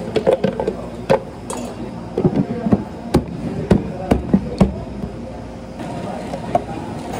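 Irregular sharp knocks and clatters of hard objects being handled, typical of cafe work. They stop about five seconds in, leaving a steady low background.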